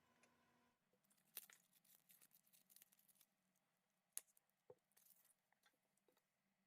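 Near silence: room tone with faint scattered clicks and light rustling.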